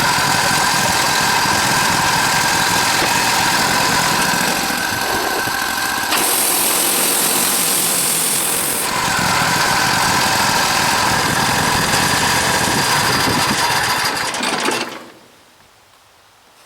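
An engine running steadily, with a high hiss over it for about three seconds partway through, then shutting off about fifteen seconds in.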